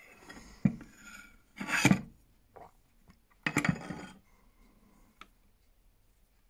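Handling noise from a small refractor telescope tube being turned over and shifted on a wooden tabletop: a light knock, then two louder rubbing bumps about two seconds apart, and a small click near the end.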